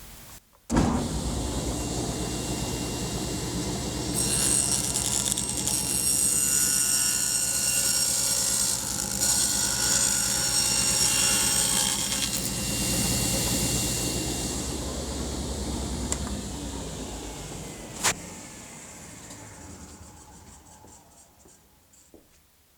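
A woodworking power tool starts up, cuts into a wooden panel for about a dozen seconds, then is switched off and winds down slowly, with one sharp click as it slows.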